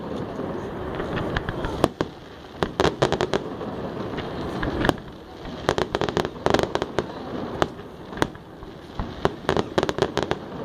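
Fireworks display going off: rapid sharp bangs and crackling in dense clusters every second or two, from low crackling gold bursts and rising red shells.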